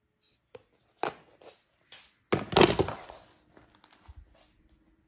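A few knocks and then a short, loud rustling clatter of cardboard phone boxes being handled, loudest about two and a half seconds in, followed by small scattered clicks.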